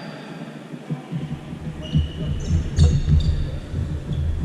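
Irregular low thumps and rumble, with a few brief high squeaks about two to three seconds in.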